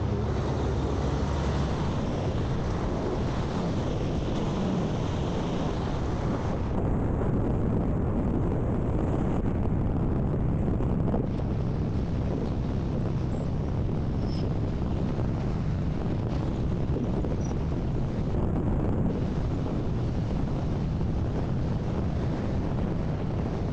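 Wind rushing over the camera microphone on a moving motorcycle, with the Kawasaki Z650's parallel-twin engine running underneath. The high hiss eases a little about seven seconds in.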